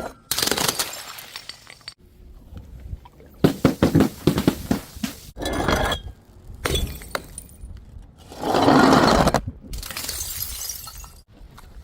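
Glass bottles shattering in a series of separate crashes, with shards clinking and rattling between them; the loudest crash comes about nine seconds in.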